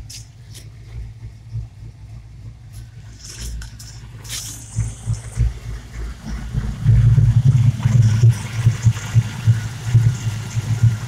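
Ford 351 Windsor small-block V8 idling with a pulsing throb that grows louder past the halfway point. The owner hears a whine at idle and puts it down to a vacuum leak from a torn brake booster diaphragm.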